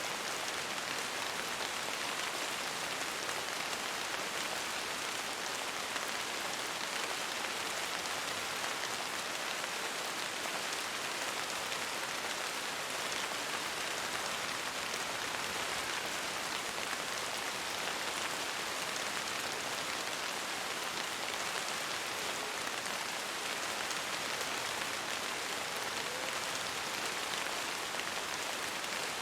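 Steady rain: an even, unbroken hiss of many falling drops with faint fine ticks, holding one level throughout.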